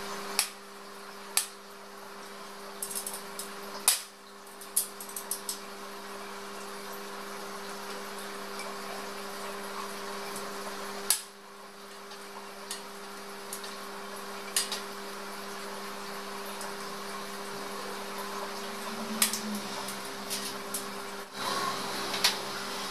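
Scattered sharp metallic clicks and knocks as the joints of a white steel mesh shelf frame are screwed and fitted together by hand, the loudest knocks about four seconds and eleven seconds in, over a steady low hum.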